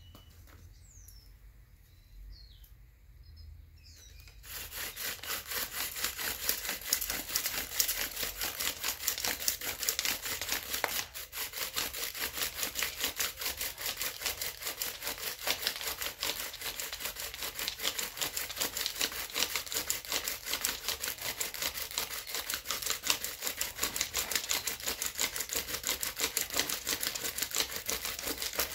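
Wooden bow drill in use: the spindle twisting back and forth in the fireboard under the handhold, a dry, rapid scraping chatter that swells and falls with each stroke of the bow as it grinds for an ember. It starts about four seconds in and keeps going.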